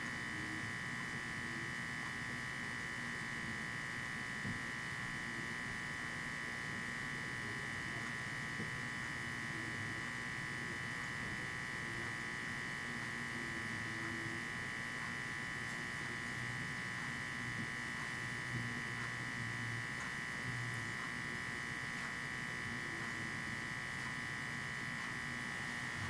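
A steady high-pitched electrical whine that holds the same pitch and level throughout, background noise of the recording rather than anything being done.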